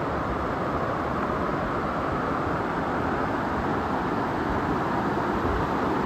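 Waterfall and the rocky stream below it rushing, a steady wash of water noise that gets a little louder over the few seconds.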